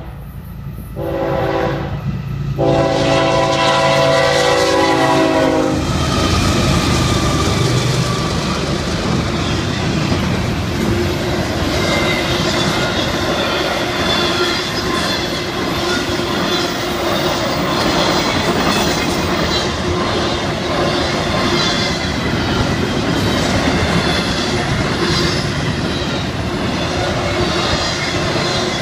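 Horn of a Florida East Coast freight led by GE ES44C4 locomotives, sounding for a grade crossing in long blasts with two short breaks and ending about six seconds in. Then a long string of intermodal flatcars rolls by with a steady clatter of wheels over the rails.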